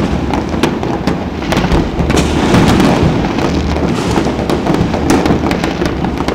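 Many fireworks going off at once across a city: a continuous din of booms and crackling, with frequent sharp bangs close together.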